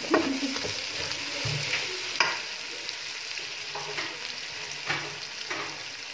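Chopped potatoes, onions and tomatoes sizzling in oil in an aluminium pressure cooker pot. A spatula stirs them, scraping and knocking against the pot about five times.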